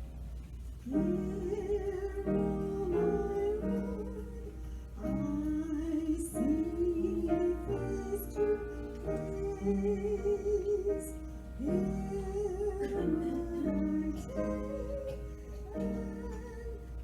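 Slow music: a sustained melody with vibrato over held accompanying notes, in phrases that start about a second in, again about five seconds in, and again near twelve seconds. A steady low hum lies underneath.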